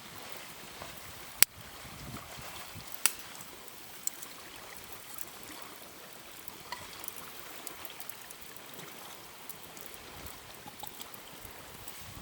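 Faint steady trickling of water, broken by a few sharp taps, the loudest about a second and a half in, and scattered small ticks.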